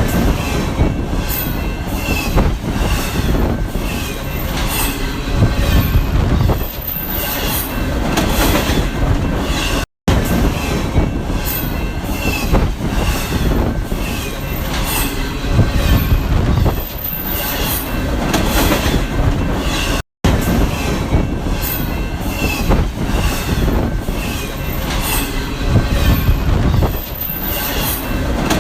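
Passing train: a steady rumble with many irregular clicks and short high squeals from the wheels on the rails. The same ten-second stretch plays three times over, with a brief cut-out between repeats.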